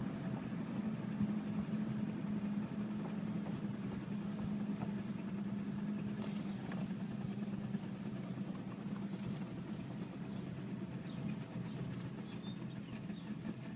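Jeep Liberty moving slowly: a steady low drone with faint metallic clicking, more noticeable near the end. The clicking's rate follows wheel speed, not engine speed, so it points to a fault in the wheels or driveline rather than the engine.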